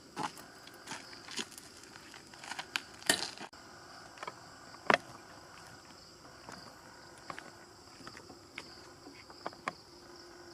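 Footsteps crunching irregularly on dry leaves and twigs, over a steady high chirring of night insects.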